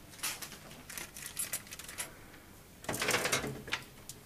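Metal oven accessories being handled: scattered light clinks, then a denser metallic clatter about three seconds in.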